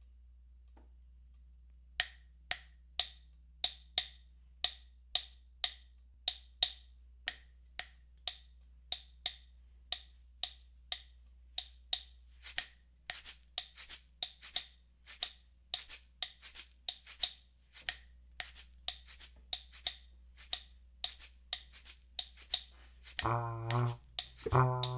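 A live percussion loop building up on a loop station: sharp wooden clicks from a clave-like stick repeat at about three a second, and about halfway an egg shaker is layered in on the beat. Near the end a valve trombone comes in with low notes over the loop.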